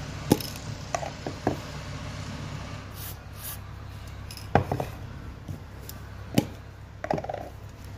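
Aerosol cans and a plastic cap handled on a table: several sharp knocks as they are picked up and set down, with a brief hiss of rust-remover spray about three seconds in, over a steady low background hum.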